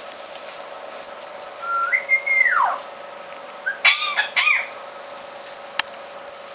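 Pet parrot whistling: one clear whistle that steps up in pitch, holds, then slides down, followed about a second later by two short, harsher calls. A single sharp click comes near the end.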